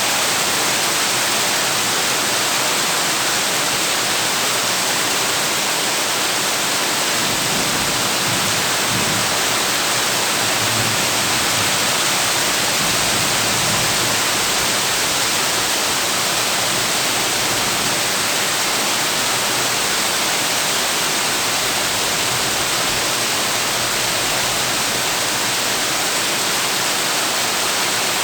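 Heavy rain falling on a tin roof, a dense, steady hiss of countless drops with no let-up.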